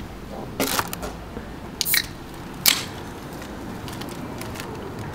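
A few brief crinkles and rustles of paper food wrappers and drink cans being handled, about three short sharp bursts over a low steady background.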